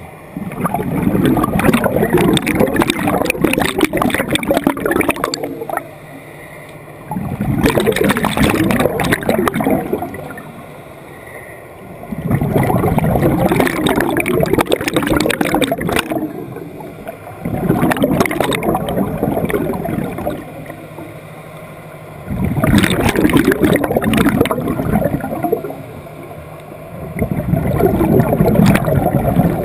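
Scuba regulator breathing underwater: six bursts of exhaust bubbles gurgling, each about three seconds long and coming roughly every five seconds, with quieter gaps between breaths.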